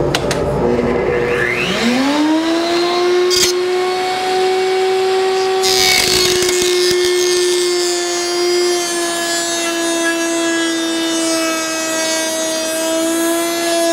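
Router in a router table spinning up about two seconds in, then running steadily at high speed. From about six seconds in, its tongue-and-groove bit cuts a groove along the edge of a pallet-wood slat, adding a rough cutting noise, and the motor's pitch sags slightly under the load.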